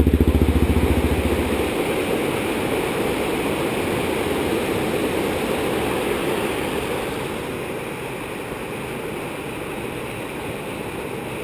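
Steady rush of running water from a creek and waterfall. An ATV engine runs under it for the first second or two, then stops. The water gets a little quieter after about seven seconds.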